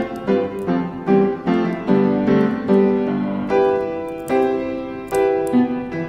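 Background piano music: notes struck one after another at an even pace, each ringing and fading.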